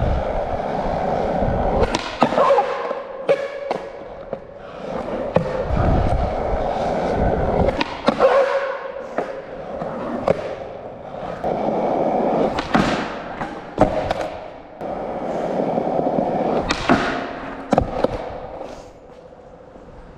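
Skateboard wheels rolling in several runs, each broken by sharp clacks and thuds of the board and trucks hitting and landing.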